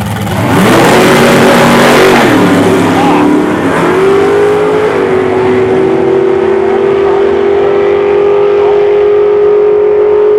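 Drag car launching from the starting line at full throttle: the engine note jumps up sharply, climbs and drops back with each gear change, then settles into a steady high drone as the car runs down the strip.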